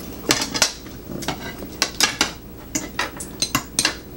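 Metal cutlery clinking and scraping on plates and a bowl as people eat: a spoon scooping from a bowl and a knife and fork cutting food on a plate, in quick irregular clinks.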